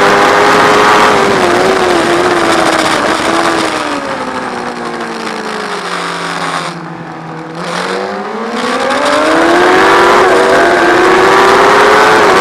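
Sport motorcycle engine heard onboard, its note falling steadily as the rider slows for a tight hairpin and lowest about six to eight seconds in, then climbing again as the bike accelerates out. Wind rush fades at the slow point and returns with speed.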